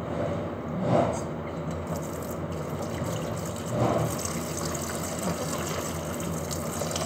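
Lidded pot cooking on a gas stove: a steady rushing, bubbling noise, with two louder swells about one second and four seconds in.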